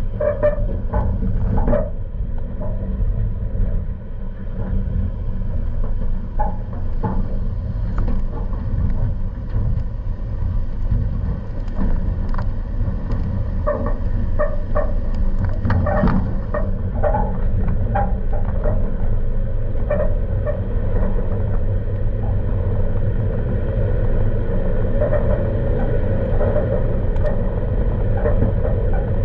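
Toyota Tacoma driving slowly over a rough dirt trail: a steady engine and road rumble, with frequent short squeaks and rattles from the truck working over the bumps.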